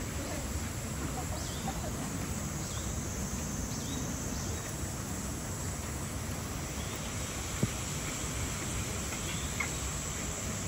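Steady outdoor background noise with scattered faint, short bird chirps and a single sharp click about three quarters of the way through.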